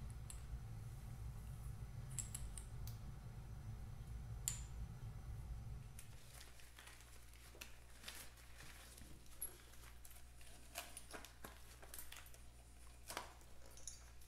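Faint scattered clicks, taps and rubbing as rubber-gloved hands twist and work a chrome pushrod tube on a motorcycle engine, trying to free it to drop down into the crankcase. A low steady hum lies underneath and drops away about six seconds in.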